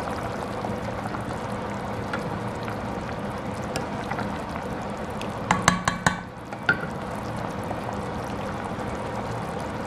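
Pot of chicken soup with carrots and potatoes simmering on the hob: a steady bubbling hiss over a low hum. A few sharp clicks and knocks, like a utensil against the steel pot, come about halfway through.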